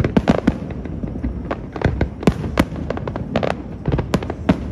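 Fireworks display: sharp bangs and cracks from the shells going off in quick, uneven succession, two or three a second.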